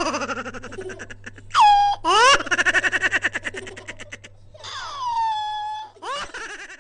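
High-pitched laughter in squealing bursts: rising squeals, then a fast run of quick 'ha' pulses, then a long falling wail, with a steady low hum beneath.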